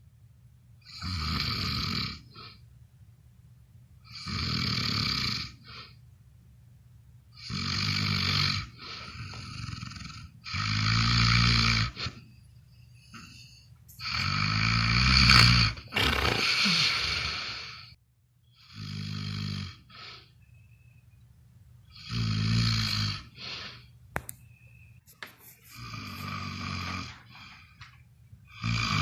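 Heavy snoring, with one long buzzing snore on each breath, about every three to four seconds.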